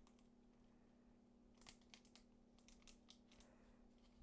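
Near silence, with a few faint crinkles from a small packet of vanillina (vanilla powder) being emptied and handled over a bowl, over a steady low hum.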